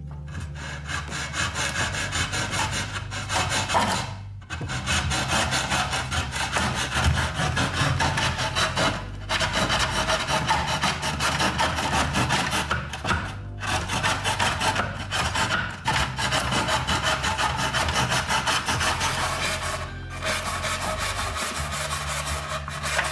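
Fine-toothed hand saw cutting a white skirting board in a plastic mitre box: rapid back-and-forth rasping strokes, stopping briefly a few times between cuts. Background music with a steady bass line runs underneath.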